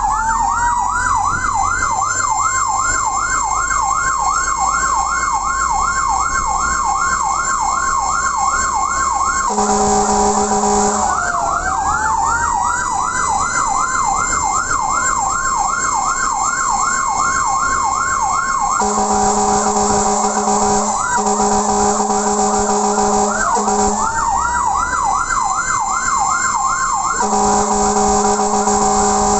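Fire truck siren on an emergency run: a fast yelp sweeping up and down about three times a second over a steady wailing tone. Four horn blasts of one to two seconds cut across it, about ten seconds in, twice around twenty seconds, and near the end. After the horn stops, the wail climbs back up.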